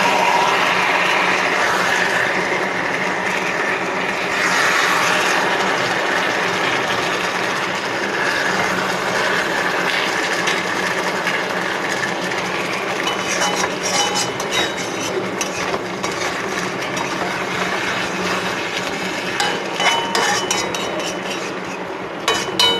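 Chicken drumsticks in masala sizzling steadily in a cast-iron kadai while a steel spatula turns them over, scraping and clinking against the pan. The clinks and knocks come more often in the second half.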